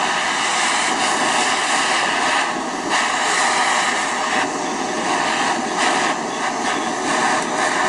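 Handheld gas torch on a screw-on gas canister burning with a steady hiss, its flame heating a steel spring.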